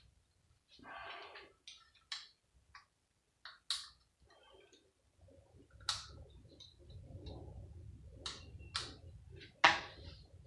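Scattered sharp clicks and snaps of hand tools prying and bending small plastic and metal parts of a PlayStation 3 fan assembly, with handling rustle. The loudest snap comes near the end.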